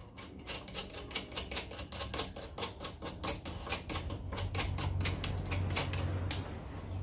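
Rapid, evenly spaced mechanical clicking, about five clicks a second, with a low hum growing louder underneath; the clicking stops with one sharper click about six seconds in.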